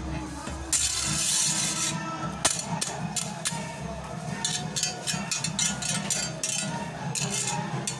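Metal peel scraping and clinking against a bed of hot pebbles in a bread oven as flatbread is moved: a rasping scrape about a second in, then a run of sharp clicks and clinks. Background music plays underneath.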